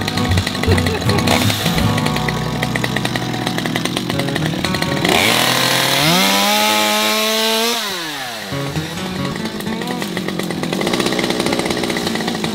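Petrol chainsaw running at low revs, then revved up to full throttle about five seconds in and held for some three seconds before dropping back.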